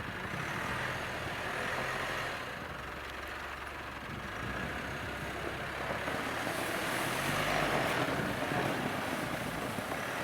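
Mitsubishi Pajero Sport driving in four-wheel drive: the engine running under load with a steady rush of tyre noise, growing a little louder about six seconds in.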